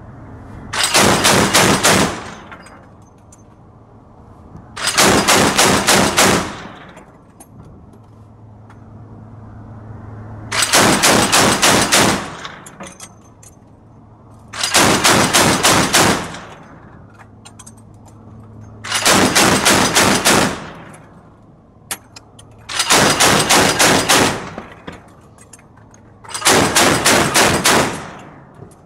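Mk 38 deck gun's 25 mm M242 Bushmaster chain gun firing on automatic: seven short bursts about four seconds apart, each a rapid string of heavy shots.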